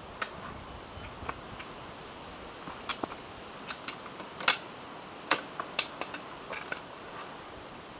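Trekking pole tips and boots knocking on wet rock as a hiker steps down a slab: a scattered run of sharp ticks at an uneven pace, the strongest a little past halfway.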